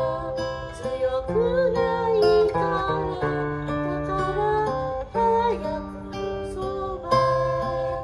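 Acoustic guitar strummed in chords while a woman sings a melody over it.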